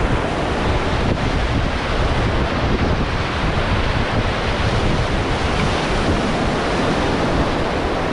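Steady rushing of river water around a raft, with wind buffeting the microphone.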